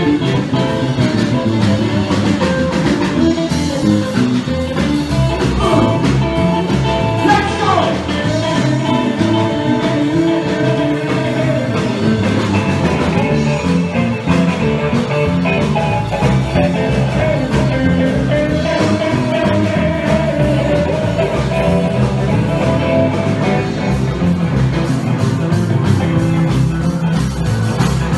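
Live rock and roll band playing loud and steady: electric guitar, bass guitar and drum kit.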